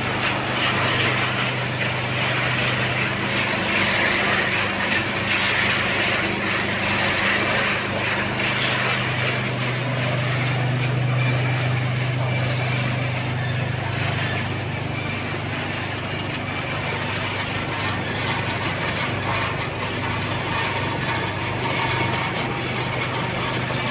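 Machinery of a corn-snack extrusion and processing line running: a steady low hum under a dense, even noise, a little louder in the first several seconds.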